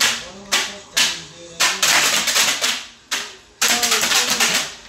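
Several folding paper concert clappers being snapped, loud. A few single snaps come at about half-second intervals, then two runs of rapid clacking follow: one around the middle and one near the end.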